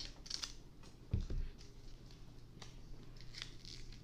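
Foil booster pack wrapper being handled and opened, with faint crinkles and small ticks and a dull thump about a second in.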